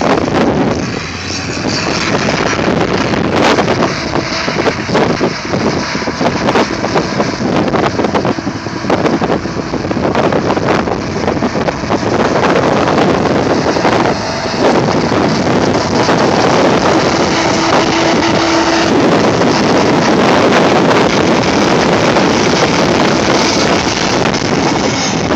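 Gleaner combine running steadily while harvesting wheat: a loud, dense mechanical din, with a brief steady hum about two-thirds of the way through.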